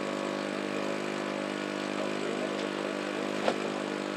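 An engine running steadily with an even, unchanging hum. A single sharp knock comes about three and a half seconds in.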